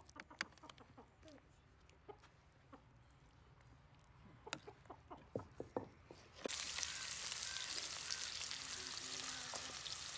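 A spoon clicking and scraping lightly on a plate of rice, then, about six seconds in, a sudden, steady sizzle as sliced onions fry in hot oil in a karahi.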